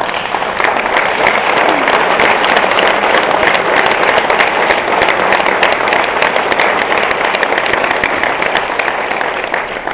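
Audience applauding loudly, with many close hand claps; it starts all at once and dies down near the end.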